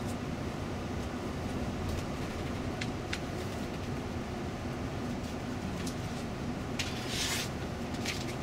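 Steady engine and tyre noise of a Setra coach driving on the highway, heard from inside the cabin, with a few faint clicks and a short hiss about seven seconds in.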